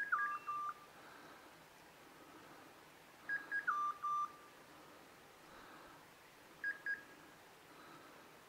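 Electronic beeper on a hunting dog's collar sounding a short beep pattern, two quick high beeps stepping down to lower beeps, repeated three times about three seconds apart, the last only the high beeps. This steady repeating signal is the kind a beeper collar gives when the dog has stopped on point.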